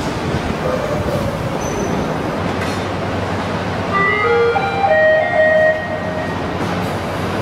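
Steady mechanical din of a truck body assembly plant, with a brief sequence of tones at changing pitches between about four and six seconds in.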